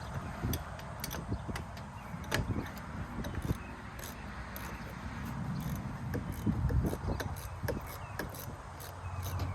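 Scattered light knocks and clicks over a low rumble.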